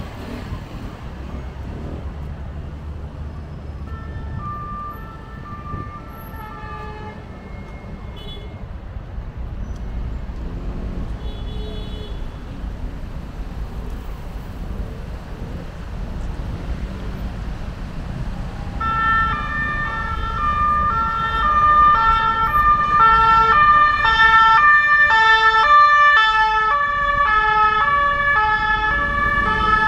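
Two-tone emergency-vehicle siren, the high-low alternating siren used by French emergency vehicles. It is faint at first and sounds loudly from about two-thirds of the way in, over a steady rumble of street traffic.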